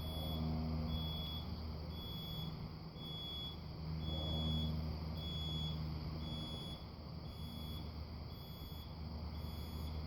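Garage AutoCloser's warning beeper sounding a steady run of short high-pitched beeps, about three every two seconds, the alert it gives before it closes the garage door. A low hum runs underneath.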